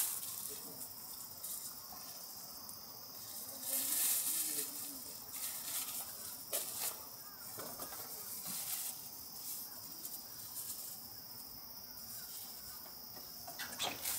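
Quiet outdoor ambience: a steady high-pitched hiss, a brief rush of noise about four seconds in, and a few faint clicks.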